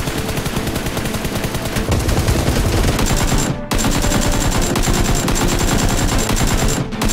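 Machine-gun fire sound effect: rapid, continuous automatic shots, broken by two brief gaps, about halfway and near the end.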